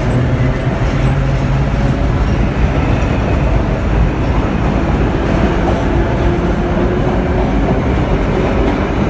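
Vintage 1930s New York subway train pulling out and running past the platform: a loud, steady rumble of wheels on rail, with a faint motor hum underneath.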